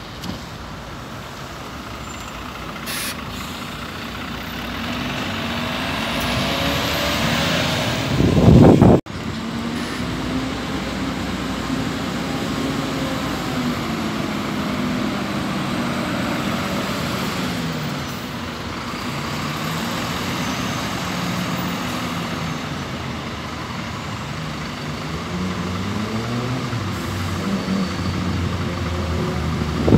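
Articulated city buses' engines running as they pull away and drive off, the engine note rising and falling through the gears. A loud rush of noise builds about eight seconds in and cuts off suddenly.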